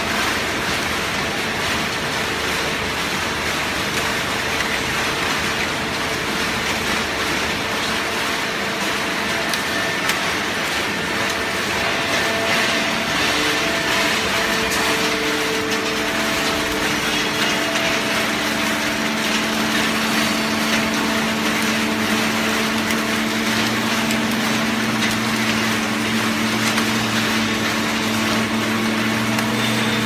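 Automatic horizontal waste paper baler running: a steady machine drone with a constant hiss and several humming tones. Around halfway a lower hum comes in and grows stronger toward the end.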